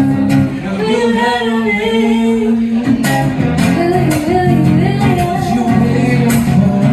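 A song performed live: a voice singing long, wavering notes over guitar.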